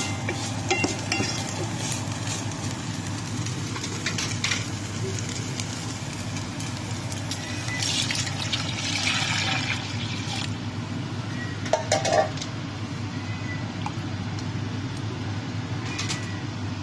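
Wooden spatula stirring ground pork in a metal pot, with scattered scraping clicks, then water poured into the hot pot with a brief hiss about 8 seconds in. A short knock with a ringing tone follows about 12 seconds in, over a steady low hum.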